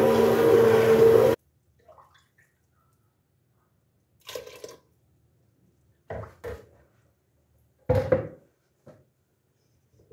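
Hand blender running with a steady whir in a pot of soup, puréeing the boiled vegetables, then switched off abruptly a little over a second in. After it come a few short knocks and clatters of the blender and steel pot being handled.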